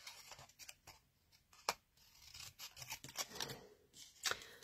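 Small craft scissors snipping through white cardstock, cutting round a stamped sentiment: a run of short snips with the paper rustling as it is turned, the sharpest snips about a second and a half in and near the end.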